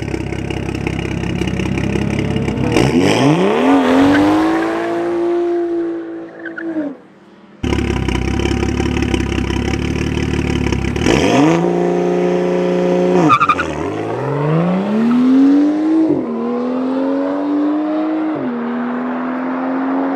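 Street-race car engine revving hard and accelerating away, its pitch climbing and holding. The sound cuts out abruptly partway through, then a second hard acceleration follows, with the revs dipping and climbing again at about three gear changes.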